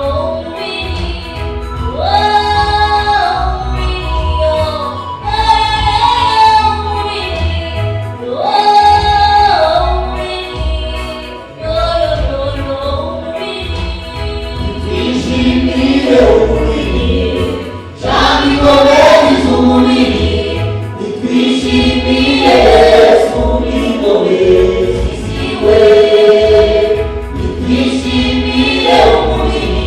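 Church choir singing gospel music with instrumental backing, sustained sung phrases over a steady bass.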